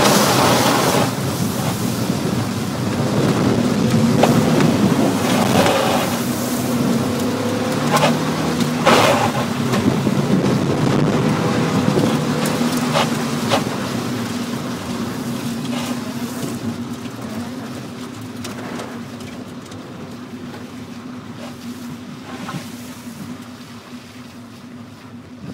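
Mazda Miata's four-cylinder engine driving hard through an autocross course in heavy rain, heard from inside the cabin, under a constant wash of tyre spray off the flooded surface and rain on the car, with short sharp splashes now and then. Over the last ten seconds or so the engine and spray fade as the car slows down.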